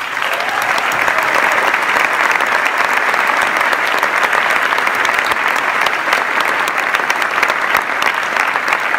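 A large audience applauding, many hands clapping in a steady, even patter.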